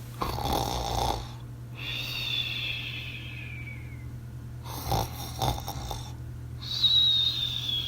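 Cartoon-style snoring sound effect: a rasping snore on the breath in, then a long whistle falling in pitch on the breath out, heard twice over a steady low hum.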